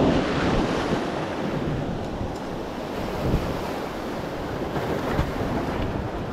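Wind buffeting the microphone over the wash of waves, an uneven rushing noise with no clear engine tone.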